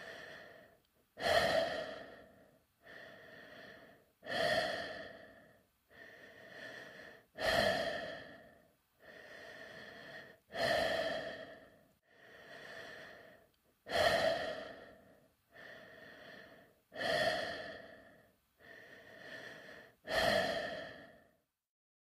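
Slow, even breathing inside a space helmet, made as a sound effect. Each cycle is a quieter breath followed by a louder one that starts sharply and fades away. The cycle repeats about every three seconds, with seven loud breaths in all.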